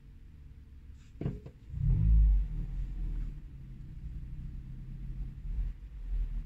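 Low vehicle rumble heard from inside a car cabin, with a sharp knock a little over a second in, then a loud surge of deep rumble about two seconds in that settles to a steady drone.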